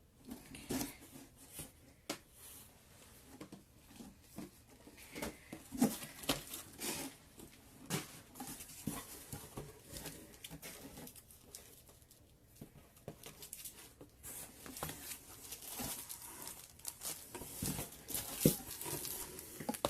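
Packaging and craft supplies being handled: rustling and crinkling of plastic and paper with scattered light taps and clicks.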